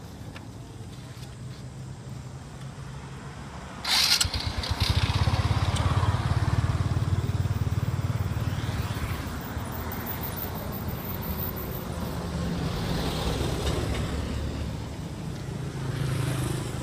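A motor vehicle engine running close by: a low rumble that jumps louder about four seconds in, with a short sharp burst of noise, then slowly eases off.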